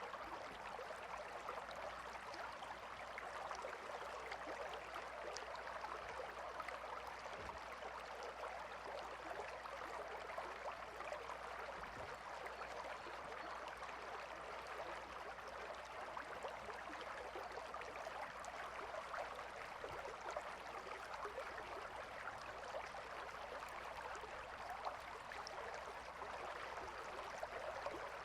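A river flowing calmly over stones, a steady gentle burble and rush of water with small splashes flickering through it.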